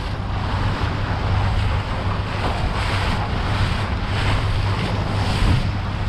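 Outboard motor running steadily as a small aluminium boat travels across choppy sea, with wind buffeting the microphone and water rushing and splashing at the hull.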